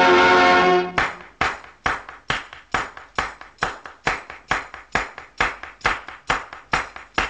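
Film-song soundtrack: a held instrumental chord breaks off about a second in, leaving a bare, steady beat of sharp percussive knocks about twice a second, some fifteen strikes.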